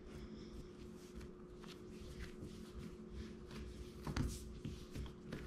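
Hands rounding a ball of whole wheat pizza dough on a countertop, tucking it underneath to seal it: soft sliding and patting against the counter, with a light tap about four seconds in.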